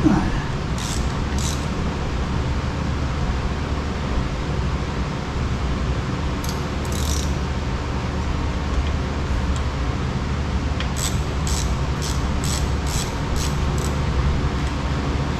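Hand ratchet wrench being worked on a bolt, short bursts of clicking about once or twice early on and then roughly two strokes a second near the end, over a steady low mechanical hum like a shop fan.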